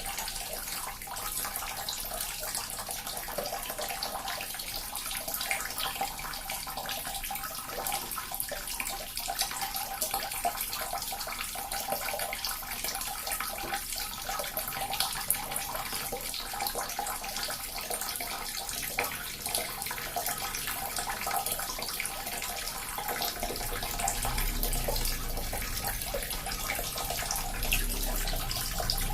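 Small water fountain running steadily, its water trickling and splashing. A low rumble joins in near the end.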